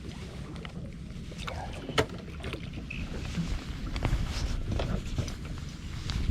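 Low, steady water noise around a small fishing boat, with scattered clicks and knocks and one sharper knock about two seconds in.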